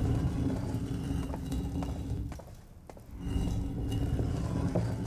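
Low, sustained background-score drone with steady pitched tones. It dips away about two and a half seconds in and swells back, with a few faint knocks.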